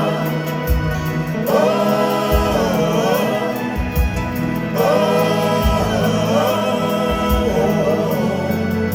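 Live band playing with several voices singing long held 'oh' notes in the song's refrain, phrase after phrase, over a steady kick-drum beat.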